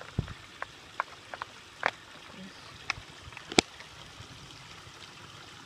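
Crinkles and clicks of a soft plastic squeeze pouch being handled while a Sawyer Mini water filter is screwed onto it: a scattered series of short sharp sounds, the sharpest about three and a half seconds in, over a faint steady hiss.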